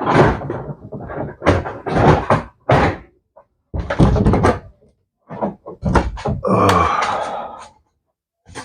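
Irregular knocks, clunks and handling noise of motorcycle fairing and instrument cluster parts being worked on by hand, with a longer scrape about two-thirds of the way through.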